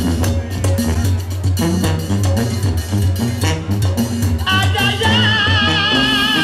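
Live banda sinaloense music: a tuba bass line pulses under drum strokes. About four and a half seconds in, the trumpets come in with held notes and a wide vibrato.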